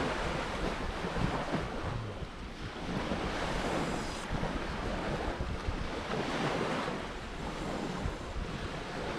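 Surf washing on a beach, swelling and easing, with wind buffeting the microphone.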